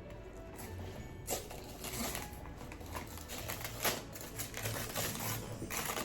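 Irregular rustling and light clicking of gift packaging being handled and opened by hand.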